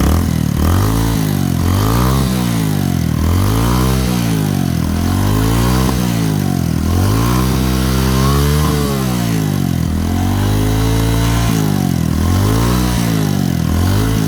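Suzuki Smash motorcycle's single-cylinder four-stroke engine revved over and over by hand, its pitch climbing and dropping back about every one and a half seconds. This is a test run after a soft, collapsed suction hose and a fuel-soaked spark plug were replaced.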